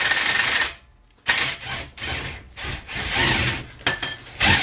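Craftsman cordless impact wrench running steadily on a rusty suspension bolt, stopping less than a second in. After a short pause come irregular scraping and rattling sounds of the socket extension and metal parts being worked.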